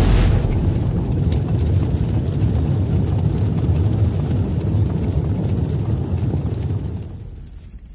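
Cinematic logo-intro sound effect: a hit at the start followed by a steady deep rumble that fades away over the last second or so.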